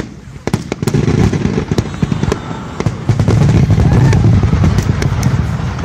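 Aerial firework shells bursting in quick succession: sharp cracks over a dense rumble of booms that swells about half a second in and is loudest from about three seconds on.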